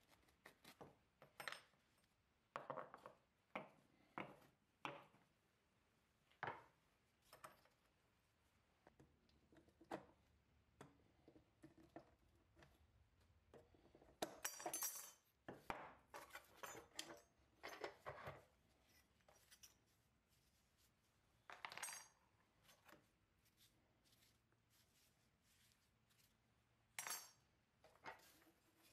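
Scattered clinks, taps and scrapes of a rusty pressed-steel 1954 Tonka toy trailer body and its small metal parts being handled and turned over on a wooden workbench, with a quicker run of clicks and scrapes about halfway through as pliers work at a hinge.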